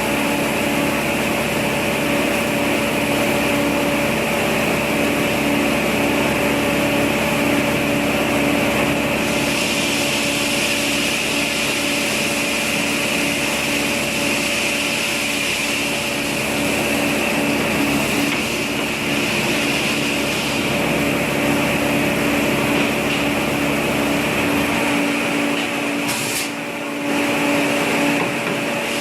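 A motor or small engine running steadily at a constant speed, with a brief dip in level near the end.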